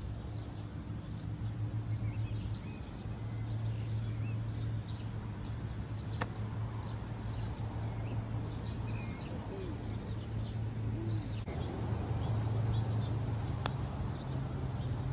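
Small birds chirping here and there over a steady low hum of outdoor background. A golf club strikes the ball with one sharp click about six seconds in, and there is another click near the end.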